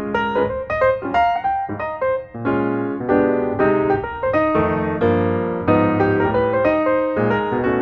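Background piano music: a steady stream of melodic piano notes.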